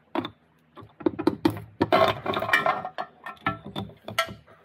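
Rear case half of an NP242 transfer case being pulled off and lifted clear: a run of metallic clinks and clunks with short ringing, busiest about two seconds in, as the casting and loose internal parts knock together.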